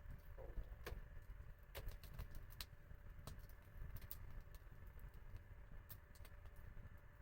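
Wood fire crackling: sharp, irregular snaps and pops over a low, steady rumble.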